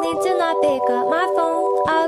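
Background music of a pop song: held chords with a wavering, bending higher melody over them, the arrangement thickening sharply at the start.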